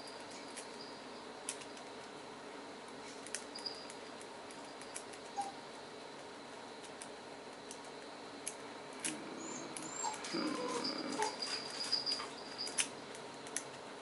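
Small scattered metallic clicks and scratches of a lock pick and tension wrench working the pin tumblers of a solid brass Viet-Tiep padlock that will not open, which the picker suspects has a broken pin. A few short chirp-like sounds come in around the middle.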